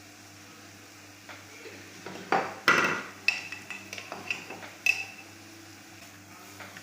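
Metal spoon knocking and scraping against a cooking pan, a cluster of clinks with short ringing between about two and five seconds in, the loudest near the start of the cluster.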